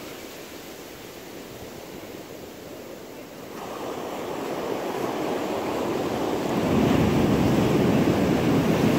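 Ocean surf: waves breaking and whitewater washing in. It is fairly quiet at first, then swells to a loud wash from about three and a half seconds in as a wave breaks and rushes up.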